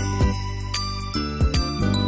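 Background music: a light tune of bell-like tinkling notes over low bass notes.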